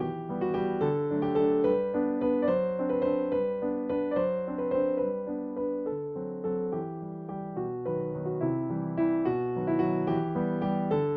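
Background piano music: a gentle melody of quick, evenly struck notes over sustained chords.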